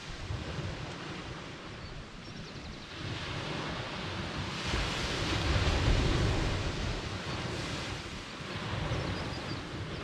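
Sea waves breaking and washing up a sandy beach, the surf swelling loudest about halfway through and again near the end, over a low rumble of wind on the microphone.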